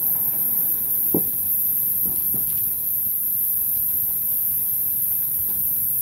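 A steady high hiss, with a dull knock about a second in and two softer knocks around two seconds. The knocks come from a 14.00-20 military truck tire on its steel combat wheel being worked off the front hub.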